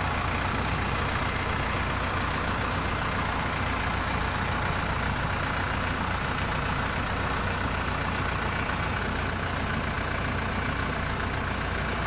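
Vehicle engine running steadily in a low gear at slow speed, a constant low drone with no change in pitch.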